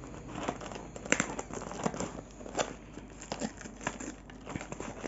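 Scissors snipping through clear packing tape and plastic wrap on a cardboard box, with crinkling plastic and irregular sharp clicks, the loudest about a second in.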